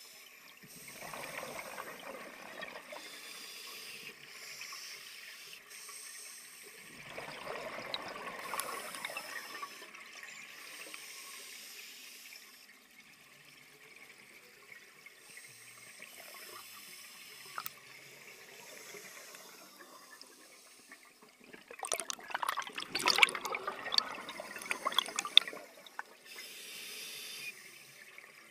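A diver's scuba regulator breathing underwater: faint hissing inhalations between three bursts of bubbling, crackling exhalation, the longest and loudest about three-quarters of the way through.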